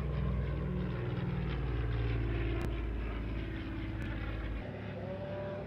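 The twin radial piston engines of a Curtiss C-46 Commando drone steadily as it flies past, their pitch sinking slightly. The deepest part of the sound drops away about four and a half seconds in.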